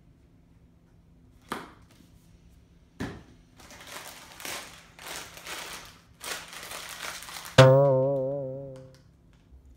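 Two knocks, then a crinkly snack bag of Hot Cheetos rustling and crackling as it is handled and opened. Near the end a loud musical sting cuts in suddenly, a single wavering tone that fades away over about a second and a half.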